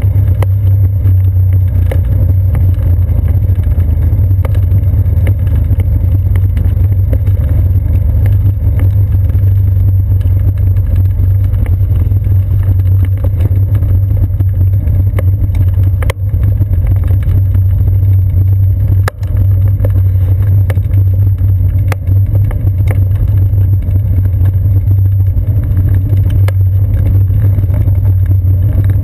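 Bicycle rolling over a wooden boardwalk, heard through a seat-post-mounted camera as a loud, steady low rumble, with a few sharp knocks and rattles from the bike and camera mount over the planks.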